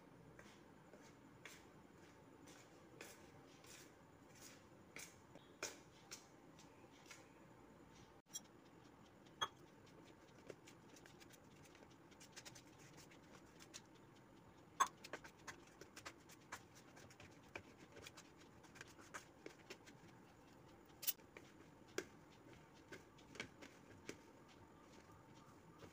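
Faint, irregular clicks and scrapes of a metal spoon against a steel plate as wheat flour and jaggery are stirred together, with softer rubbing as the mix is worked by hand.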